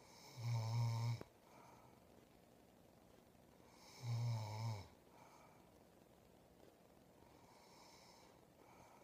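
A woman snoring in her sleep: two loud, deep snores each just under a second long, about four seconds apart, then a fainter breathy snore near the end.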